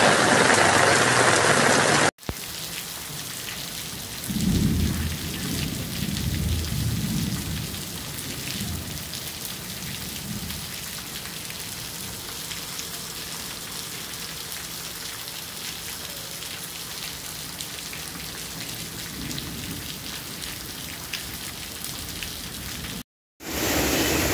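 Heavy rain pouring down steadily. A low rumble of thunder swells and fades in waves from about four seconds in. The rain sound jumps abruptly in loudness and tone twice, and is loudest in the first two seconds.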